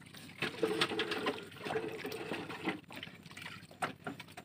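Water lapping and trickling against a small wooden boat, with light knocks and rustles as a fishing handline is pulled in by hand. A faint steady drone sounds for about two seconds, starting about half a second in.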